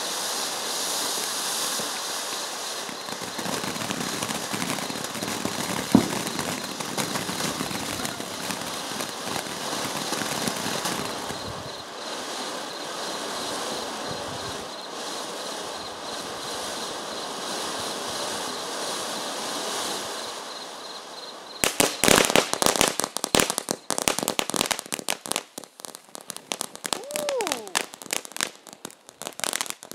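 Ground fountain firework spraying sparks with a steady hiss and one sharp pop about six seconds in. After about twenty seconds it breaks into dense, rapid crackling pops.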